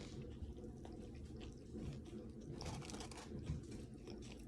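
A person chewing a mouthful of fast food, faint, with a cluster of louder mouth clicks about two and a half seconds in.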